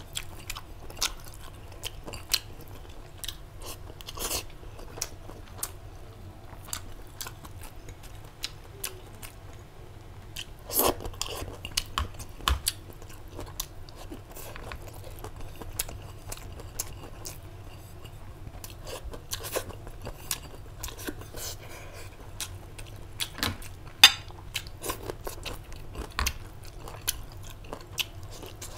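A person chewing and crunching a meal of rice and pickled vegetables close to a clip-on microphone, with irregular crisp clicks and smacks throughout; one sharp click late on is the loudest.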